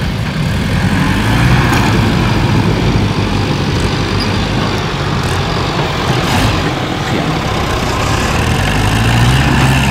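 Kubota farm tractor's diesel engine running steadily as it pulls a disc plough through dry field soil. The engine note grows stronger near the end as the tractor comes closer.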